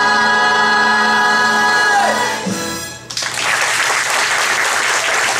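A young male singer holds the song's long final note over musical accompaniment, which stops about two seconds in. After a short pause the audience breaks into applause.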